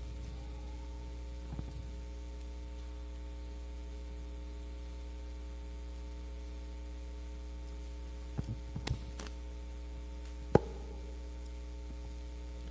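Steady electrical mains hum through the church sound system, with a few light knocks and rustles from handling the handheld microphone and turning Bible pages; the sharpest knock comes near the end.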